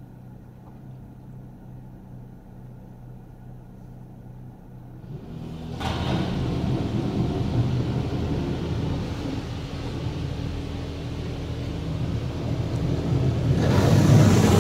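Heard from inside a minivan's cabin in a touchless automatic car wash: a quiet steady hum, then about five seconds in the high-pressure water spray starts hitting the windshield and body with a loud, steady rush that grows louder near the end.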